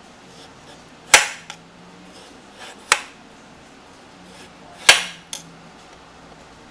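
Kitchen knife slicing through raw peeled potatoes into rounds and striking the cutting surface: three sharp knocks about two seconds apart, two of them followed by a lighter tap.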